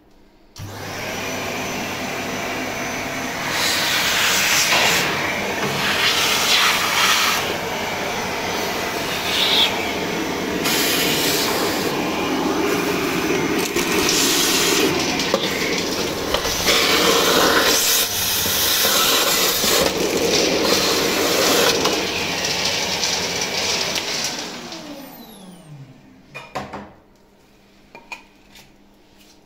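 Kärcher AD 4 Premium ash vacuum with a 600 W motor, switched on about half a second in and running with a changing hiss while its nozzle sucks ash from a pellet stove. Near the end it is switched off and winds down with a falling whine, followed by a few short knocks.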